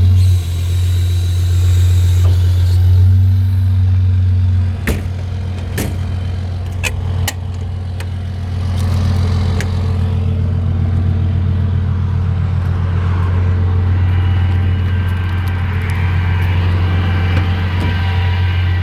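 Dodge service truck's diesel engine running steadily, with a few sharp clicks partway through.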